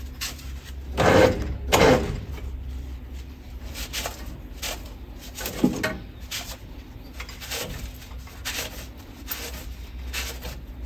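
A shop towel scrubbing over piston tops and cylinder bores in an engine block, cleaning off crud in a string of short, irregular rubbing strokes. Two louder strokes come about one and two seconds in, over a low steady hum.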